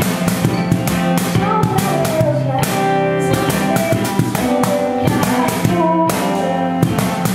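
Acoustic guitar strummed with a steady beat on a cajon, played live.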